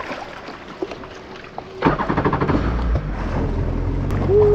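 Kawasaki SX-R 1500 stand-up jet ski's four-cylinder engine starting suddenly about two seconds in, then running steadily. A short tone sounds near the end.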